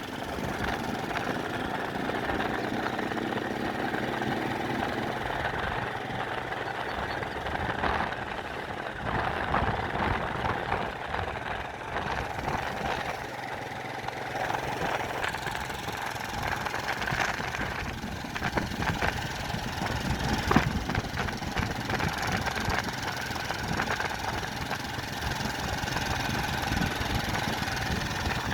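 An engine running steadily, with irregular clatter and knocks over it.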